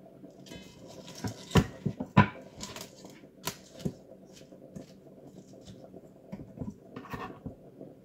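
Kitchen cleaver and chopped lettuce handled on a wooden cutting board: a string of sharp knocks and taps, the two loudest about a second and a half and two seconds in, then lighter scattered taps.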